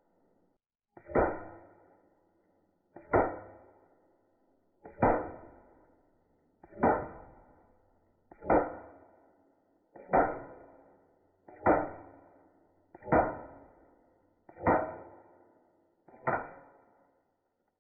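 Ten .22 rimfire shots fired at a steady pace, about one every second and a half to two seconds, each sharp crack dying away with a short ring.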